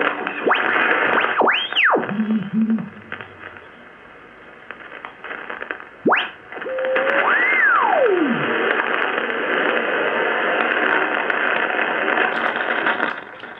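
Drake R77 HF receiver's speaker giving out band noise and static as it is tuned across the dial, with whistles sliding up and down in pitch as the tuning passes over station carriers. One quick whistle comes about one and a half seconds in, and a longer one about six seconds in rises and then falls slowly. The hiss drops quieter for a few seconds in between.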